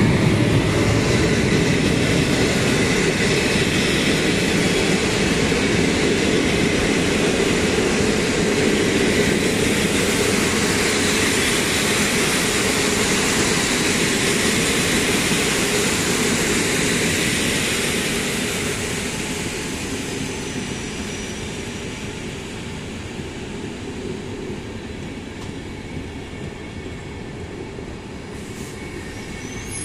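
Siemens Griffin (EU160) electric locomotive and its Intercity passenger coaches passing close by as the train runs into the station: a loud steady rumble of wheels on rails that eases off from about eighteen seconds in as the train slows, with thin high squeals from the brakes over it.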